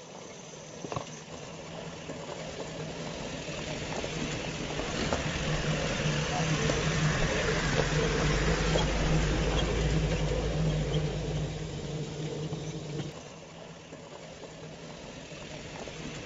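A steady motor hum under rough running noise. It swells louder over several seconds in the middle and drops back about thirteen seconds in.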